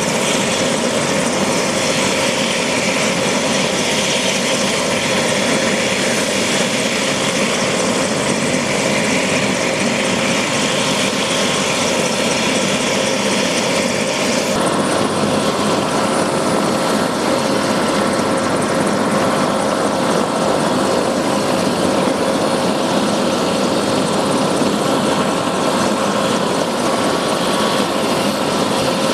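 Medical helicopter's turbine engine and rotor running steadily while parked on the ground, a constant whine over a rushing noise. About halfway through the hiss thins and a higher steady whine comes through.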